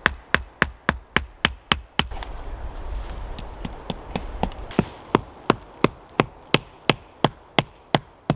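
The back of a hatchet hammering wooden tent pegs into the forest floor, in quick, regular knocks. The knocks stop about two seconds in, then pick up again a little slower near the middle.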